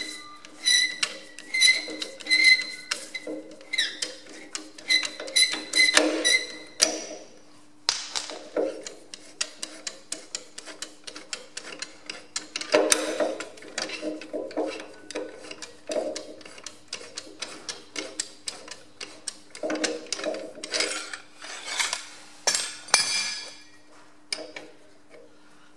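Metal clinking and scraping as a long screwdriver is knocked and levered against the draft link spring's adjusting nut on a Ferguson FE35 tractor. There is a quick run of ringing strikes over the first several seconds, then scattered clicks and scrapes as the nut is worked by hand.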